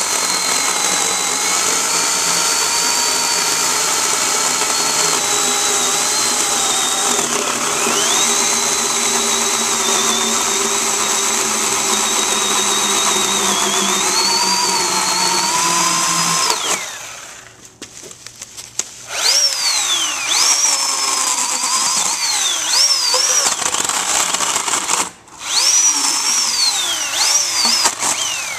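Oregon PowerNow 40-volt battery-powered electric chainsaw cutting through a log: a steady high motor whine that sags in pitch as the chain bites into the wood and recovers, for about sixteen seconds, then stops. After a short pause come several brief trigger pulls, the motor whining up and falling away each time as the cut is finished.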